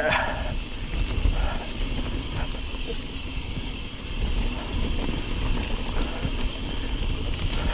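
Mountain bike speeding down a dirt forest singletrack: wind rush on the camera microphone with the rumble and rattle of the tyres and bike over the rough trail, and a brief louder noise right at the start.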